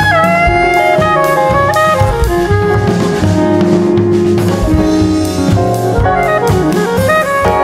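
Background jazz music: a horn melody over drums and bass.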